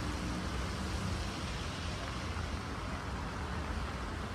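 City street traffic: cars driving past, a steady hiss of tyres and engine rumble.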